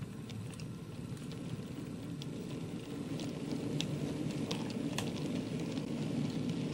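OO gauge model coal train rolling past on the track behind a Bachmann Collett goods locomotive: a steady low rumble of the running wheels that slowly grows louder, with scattered light clicks from the wheels on the rails.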